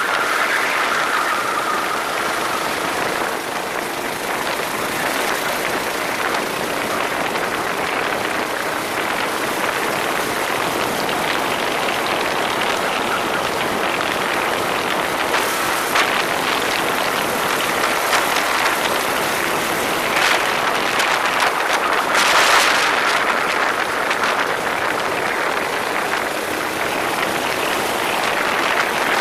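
Racing kart running on track: a steady rush of wind and motor noise, with a louder surge of noise about 22 seconds in.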